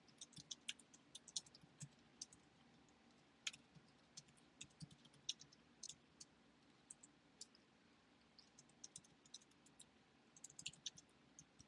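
Faint keystrokes on a computer keyboard: irregular clicks in quick runs, with a short lull a little past the middle.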